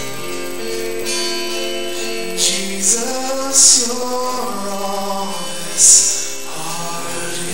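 Live worship music: acoustic guitar with voices singing, held notes sliding between pitches, and a few brief bright hisses.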